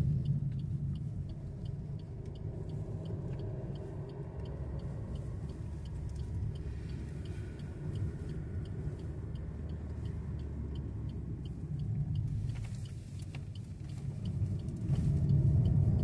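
Steady low rumble of a car's engine and tyres heard from inside the cabin while driving, with a light regular ticking that stops about twelve seconds in.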